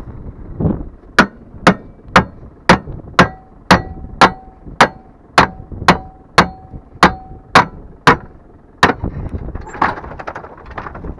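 Hammer blows on the steel tailgate latch of a wooden farm trailer: about fifteen sharp metallic strikes, roughly two a second, some ringing briefly. Near the end the blows stop and the knocked-loose tailgate drops open, with manure sliding and spilling out in a rumbling scrape.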